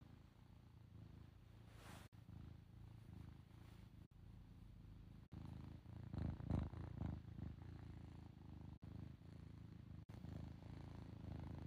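A pet cat purring in a steady, pulsing rumble that swells louder for a second or two about six seconds in.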